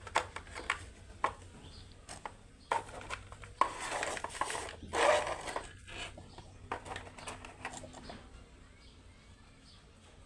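Smartwatch box and packaging being handled: scattered clicks and light taps, with a longer rustle of packing material about four seconds in.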